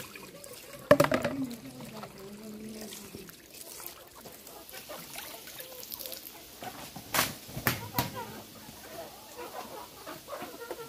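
Hens clucking in a chicken run as vegetable scraps are scattered for them. A loud knock comes about a second in, and two more sharp knocks a little past the middle. Running water from a hose fades out at the very start.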